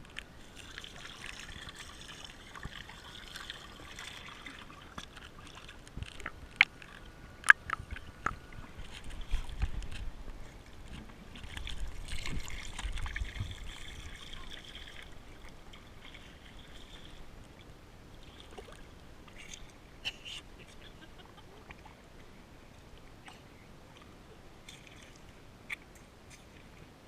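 Water sloshing and trickling, with a few sharp clicks about six to eight seconds in, growing quieter and sparser in the second half.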